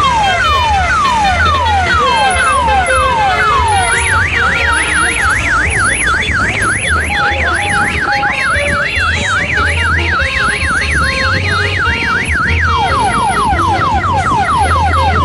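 A vehicle's electronic siren switching through its patterns: repeated falling wails at about two a second, then a fast up-and-down warble for about nine seconds, then quicker falling wails near the end. A low engine hum runs underneath.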